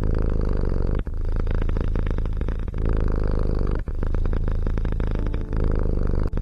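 Domestic cat purring loudly close to the microphone, a steady fast rumble that pauses briefly about every second or so as the cat switches between breathing in and out.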